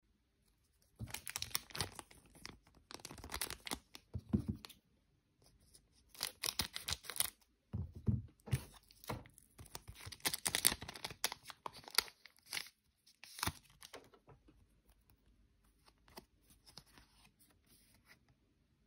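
Japanese Pokémon GO booster pack's foil wrapper being crinkled and torn open by hand, in several bursts of rustling and tearing over the first fourteen seconds. Fainter rustling of the cards being handled follows near the end.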